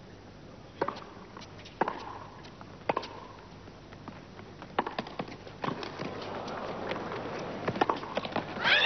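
Tennis rally: a ball struck back and forth with racquets, sharp hits roughly once a second. The crowd noise rises through the rally and breaks into applause at the very end as the point is won.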